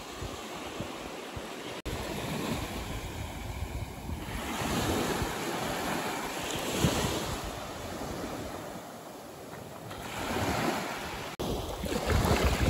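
Waves washing onto a shore, with wind buffeting the microphone; the surf swells twice, once in the middle and again near the end, and the sound cuts out for an instant twice.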